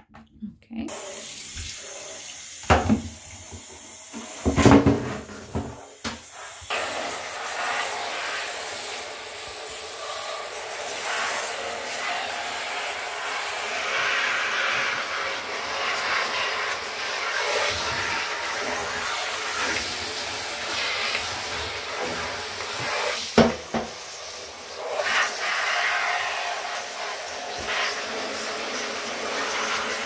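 Water from a handheld shower running steadily into a bathtub, rinsing a tumble dryer's plastic condenser unit, with a few sharp knocks in the first seconds and once more near the end.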